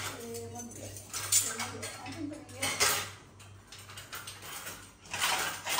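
Aluminium cooking pots and metal utensils clinking and clattering, with two sharp clinks in the first few seconds and a burst of clattering near the end, over a steady low hum.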